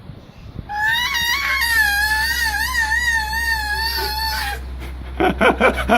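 A toddler's voice into an electric fan: one long, high-pitched, wavering squeal, then quick choppy vocal bursts near the end, over a steady low hum.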